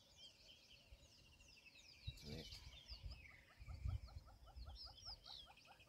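Faint birdsong: many short high chirps, joined about two and a half seconds in by a rapid run of repeated call notes, about five a second.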